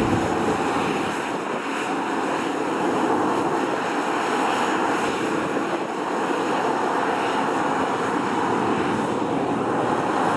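Boeing C-17 Globemaster III's four Pratt & Whitney F117 turbofan engines at takeoff thrust, a steady jet noise as the aircraft lifts off the runway and climbs away.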